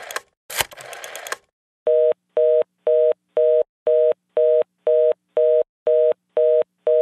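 A rotary telephone dial whirs back with faint clicks, then the receiver plays a busy signal: short two-tone beeps repeating about twice a second.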